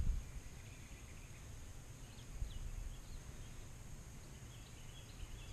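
Birds chirping in short falling notes, a few about two and a half seconds in and a quick run of them near the end, over a steady high insect hum and a low rumble.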